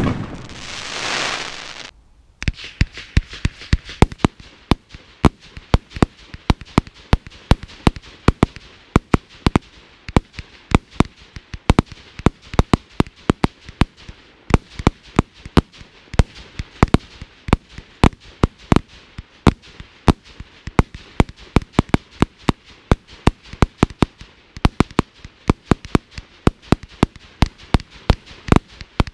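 A multi-shot firework barrage firing a rapid, steady series of sharp cracking shots, about three a second. A short hissing burst opens it.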